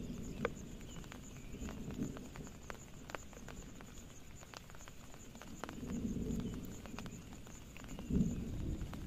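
Scattered raindrops and drips tapping irregularly on a tarp shelter and the surrounding leaves, with a few low thumps.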